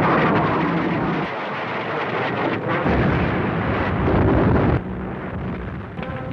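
Sound effects of a wartime bombing raid: aircraft engine noise and rolling explosions. A heavy low rumble from the blasts builds over the middle of the stretch, then the sound drops to a quieter crackle near the end.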